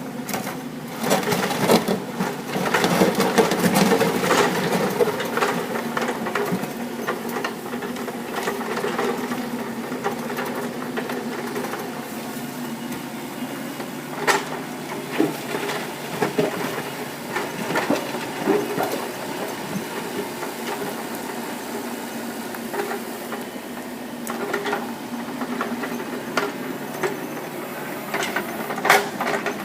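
Kubota mini excavator's diesel engine running steadily, louder for the first few seconds as it works, with occasional sharp knocks, the loudest about halfway through and just before the end.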